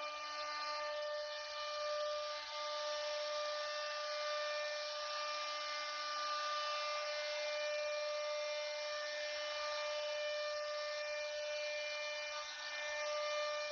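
CNC router spindle running with a steady high-pitched whine and cutting hiss, at an unchanging pitch.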